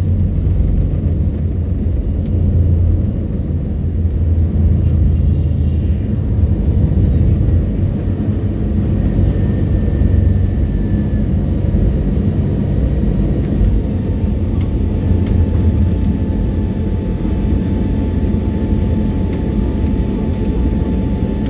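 Cabin noise of an Airbus A320neo at takeoff thrust as it lifts off and climbs: a steady low noise, heaviest in the first few seconds, with a faint steady whine coming in past the middle.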